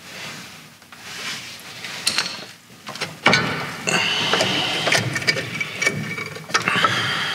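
Metal clicks and knocks, then from about three seconds in a small motor whirring steadily at a high pitch, with sharp clicks over it.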